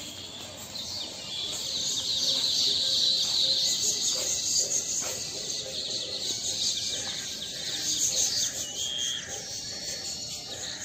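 Many birds chirping and twittering at once in a dense chorus, growing louder after the first couple of seconds and easing off near the end.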